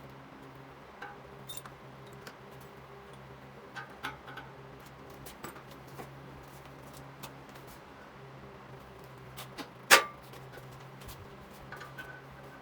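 Scattered light clicks and knocks of objects being handled, with one sharp loud knock about ten seconds in, over a steady low hum.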